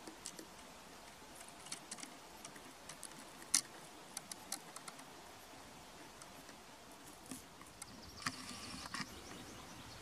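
Faint outdoor ambience: a soft steady hiss with scattered small sharp ticks and clicks, the loudest about three and a half seconds in, and a brief cluster of higher, scratchy sound near the end.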